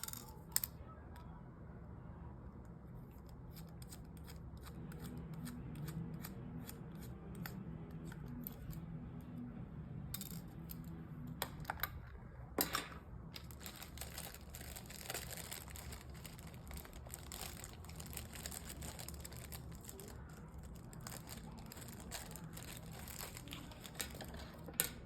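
Small clicks and taps of precision repair tools and parts on an iPhone being taken apart, with a few sharper clicks, over a steady low hum.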